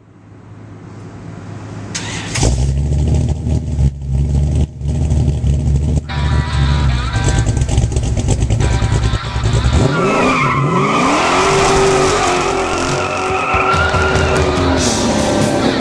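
383 stroker small-block Chevy V8 in a 1995 Mustang, heard through its X-pipe exhaust. It fades in at a deep, lumpy idle, then revs hard about ten seconds in. Tyres squeal through a smoky burnout as the car pulls away.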